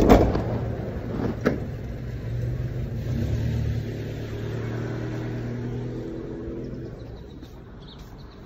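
Kindergarten minibus driving off: two sharp knocks as the sliding door shuts, then its engine runs up as it pulls away and fades out over the last couple of seconds.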